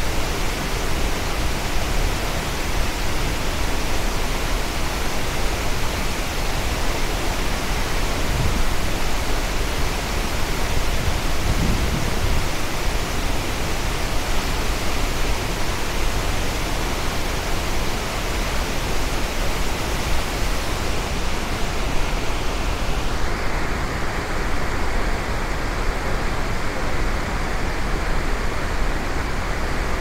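Large waterfall in heavy spring flow: a steady roar of falling water. About three-quarters of the way through, the higher hiss in it drops away, leaving a duller rush.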